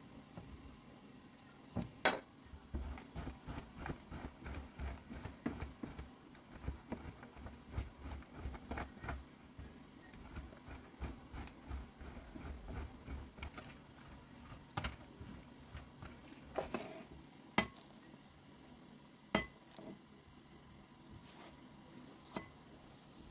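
A block of cheese rubbed up and down a metal box grater resting on a plastic cutting board: a steady scraping rhythm of about two to three strokes a second through the first half, then a few sharp knocks as the grater and board are handled.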